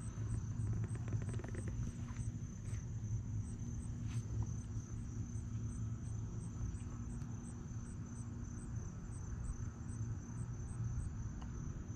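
Insects calling in a steady chorus: a continuous high buzz with a short chirp repeating about two or three times a second, over a steady low rumble.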